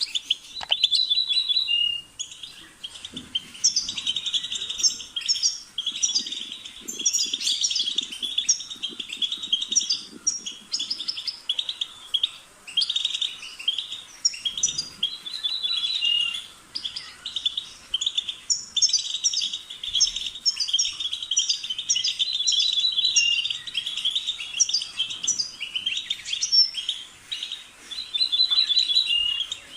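European goldfinch singing: long phrases of rapid, tinkling twitters and trills, broken by short pauses. A short quick rattle ending in a clear note comes back four times.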